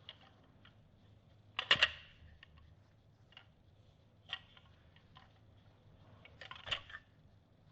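Balisong (butterfly knife) clicking lightly as it is twirled open around the fingers: a loud cluster of sharp clicks near two seconds in, a single click past the middle and another cluster near the end, with a few fainter ticks between.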